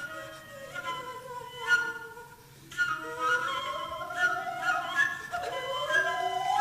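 Live jazz ensemble playing: sustained melodic wind notes over a soft accompaniment, dropping to a quiet moment about two seconds in, then building again as a held note slides slowly upward in pitch.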